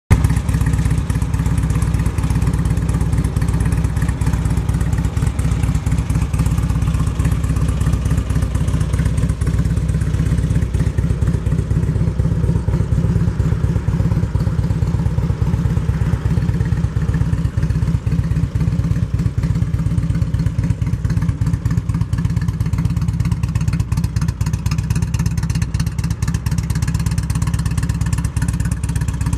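2005 Harley-Davidson Road King's Twin Cam 88 V-twin idling steadily through Vance & Hines exhaust, a low, even train of firing pulses with no revving.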